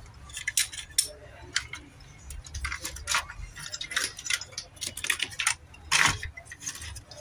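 Irregular small clicks and clinks of plastic and metal projector parts being handled and fitted by hand, with a louder knock about six seconds in.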